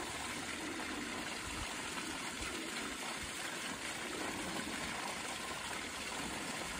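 Water running steadily into a garden pond as it is topped up.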